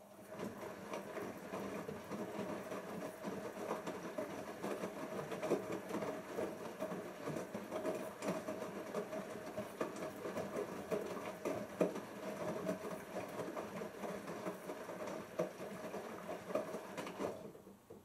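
Siemens IQ1430 washing machine turning its drum: a steady motor whine with the wet load sloshing and pattering inside. It stops about seventeen seconds in, the pause of a wash-phase tumble.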